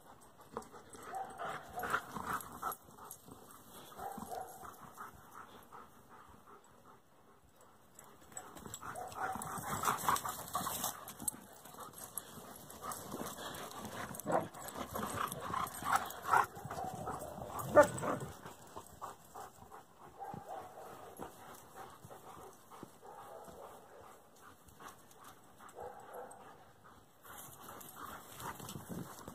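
Dogs playing rough, with short yips and whines now and then, busiest around ten seconds in and again from about fourteen to eighteen seconds.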